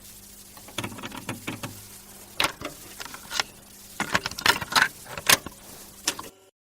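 A quick run of sharp clicks and jangling rattles over a faint steady hum, cutting off abruptly near the end.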